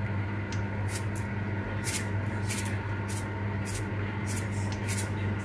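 Salt being added to a cooking pot: short, sharp hisses at uneven spacing, about two a second, over a steady low hum.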